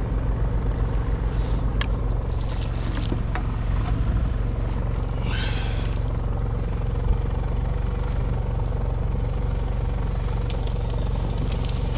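Steady engine drone aboard an electrofishing boat, whose generator powers the shocking booms, running without change.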